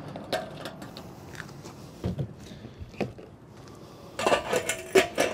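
Light knocks and clicks of a plastic funnel being lifted out of a small engine's fuel tank and the fuel cap being handled, with a busier run of clicks near the end.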